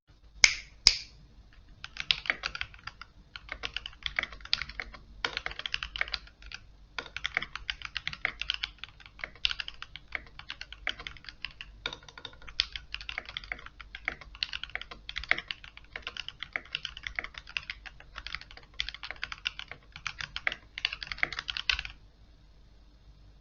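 GK61 mechanical keyboard with lubed Gateron Silver optical switches, typed on fast in a steady stream of keystrokes. Two sharper clacks come just under a second in. The typing stops about a second and a half before the end.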